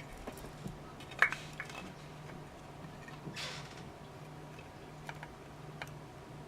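Small clicks, taps and a brief scrape from handling a power-supply circuit board and tools, the sharpest click about a second in, over a faint steady low hum.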